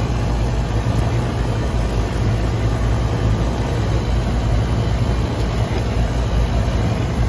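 Outdoor central air-conditioning condenser fan running: a steady, loud low hum with an even rush of air.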